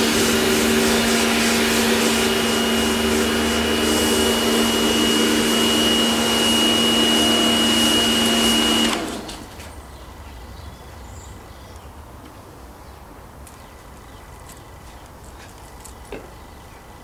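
A machine's motor running steadily and loudly with a humming whine, cutting off suddenly about nine seconds in and leaving only quiet background.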